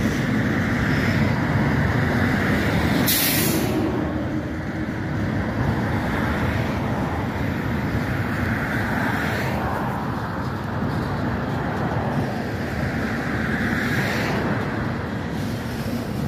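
Freight train of tank cars rolling past with a steady low rumble, with a brief sharp hiss about three seconds in and softer hissing swells later.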